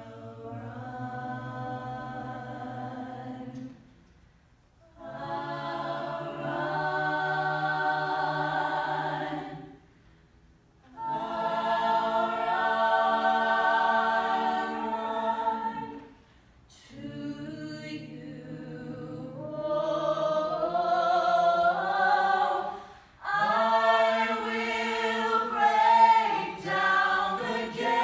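Mixed-voice a cappella choir singing held chords in four long phrases, with short breaks between them. The last phrase is louder and its harmonies move more.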